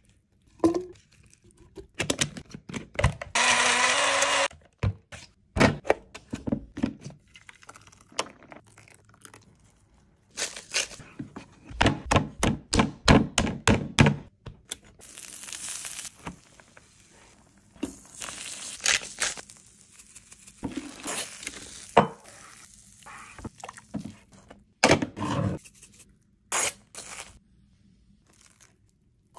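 A string of food-prep handling sounds: thunks, clicks, knocks and scrapes of utensils and food on a wooden board. A small portable blender runs for about a second and a half a few seconds in.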